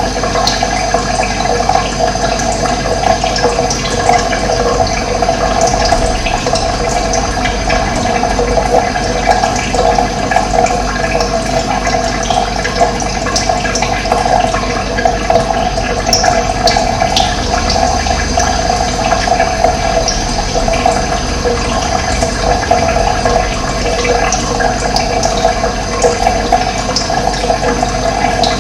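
Running water flowing and splashing steadily, a dense even rush with no pauses.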